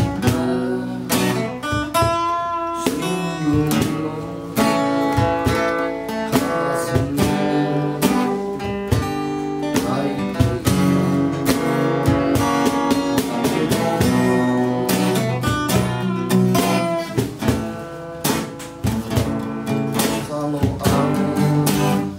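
Two acoustic guitars playing together, strummed chords under a picked melody line, in an instrumental passage of a folk song.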